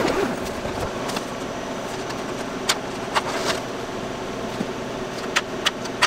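Clear plastic window of a soft-sided laser enclosure rustling as it is pulled back, then a few sharp light clicks as thin laser-cut plywood pieces are handled on the metal honeycomb bed, over a steady background noise.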